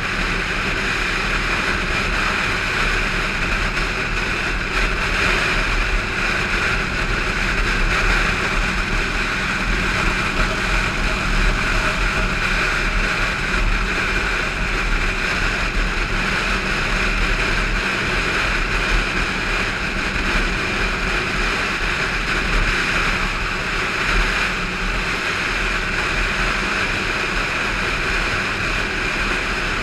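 Motorcycle engine running steadily at highway cruising speed, mixed with wind rushing over the microphone.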